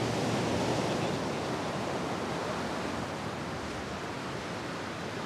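Steady wash of ocean surf and wind, a continuous even noise easing slightly in level.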